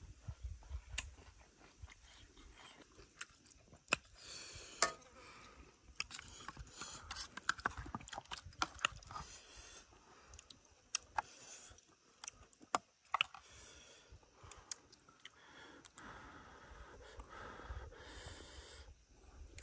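A person chewing mouthfuls of cooked snake from a soup with bamboo shoots, with scattered sharp clicks of a metal spoon.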